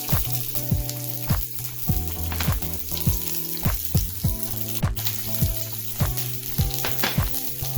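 Onions and bell pepper sizzling and frying in hot oil in a pan, a steady crackling hiss.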